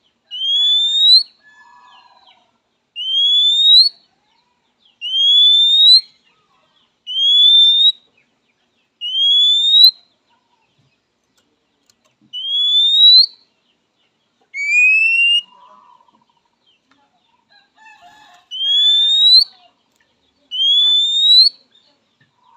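Oriental magpie-robin giving its typical rising whistled call to rivals: a clear, drawn-out whistle sliding upward, repeated nine times at roughly two-second intervals, with a few faint lower chirps in between.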